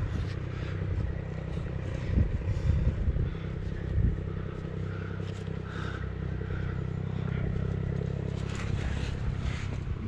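Steady low rumble on a helmet-mounted camera's microphone, with scrapes and a few sharp knocks from the climber's hands and body moving over the limestone, the knocks clustered about two to four seconds in.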